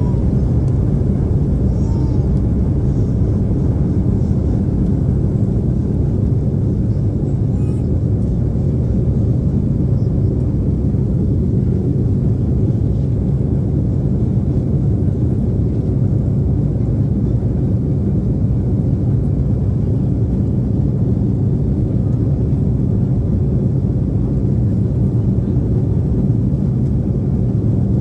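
Embraer 175 jet engines at takeoff thrust, heard inside the cabin as a loud, steady low rumble through the end of the takeoff roll, liftoff and initial climb.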